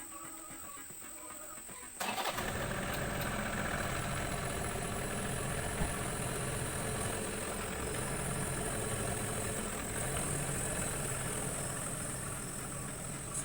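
An engine running steadily, coming in abruptly about two seconds in.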